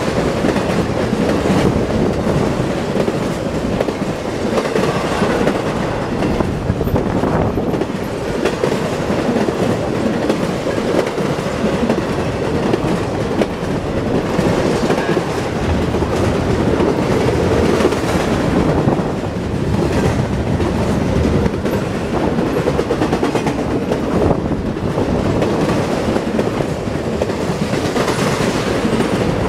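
Intermodal freight train of truck trailers on flatcars rolling past close by, its wheels clattering steadily over the rails with a loud, continuous rumble.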